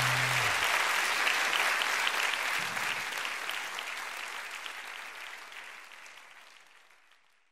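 Audience applause with a held low final note of the band ending about half a second in; the applause fades out gradually to silence by the end.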